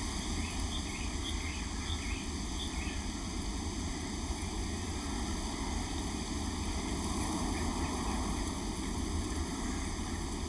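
Steady outdoor background noise, an even rushing hiss with no clear rhythm. A few faint high chirps come in the first three seconds.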